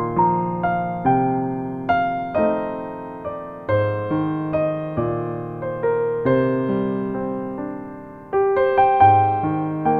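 Gentle piano music: single notes and chords struck one after another and left to fade.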